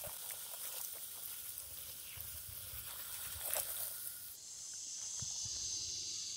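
Water spraying from a garden hose nozzle onto a deer skull and splattering on concrete, a steady hiss. The spray thins out about four seconds in.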